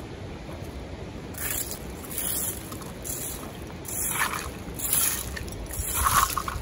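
A rake dragged in short strokes over gravelly dirt, its tines scraping across the ground about once a second, six strokes starting about a second and a half in.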